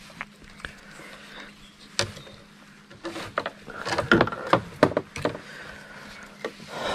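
Scattered light knocks and clicks of gear being handled in a small boat, with a single sharp click about two seconds in and a busier run of knocks in the middle, over a faint steady hum.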